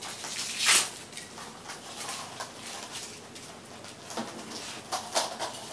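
Handling noise: rustling and light scuffs from a coil of black plastic pipe being moved about, loudest a little under a second in, with a few shorter scuffs near the end.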